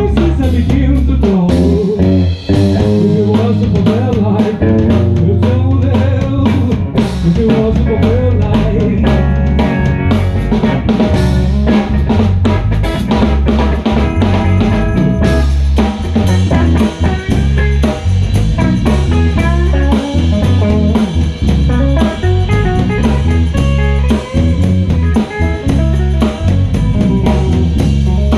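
Live blues band playing an instrumental passage: electric guitar over a drum kit and bass guitar.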